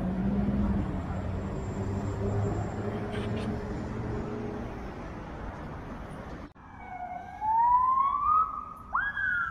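Street traffic, a steady hum of vehicle engines, cuts off suddenly; about a second later an emergency-vehicle siren starts wailing, its pitch rising, then jumping up and falling away.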